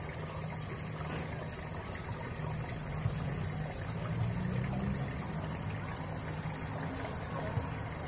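Steady trickling of aquarium water, with a low hum underneath, as from a running aquarium filter.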